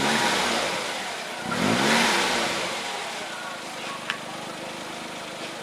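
Small car engine of a kei-registered Rover Mini being revved: two throttle blips that rise and fall in pitch, at the start and about two seconds in, then the engine settles lower and fades.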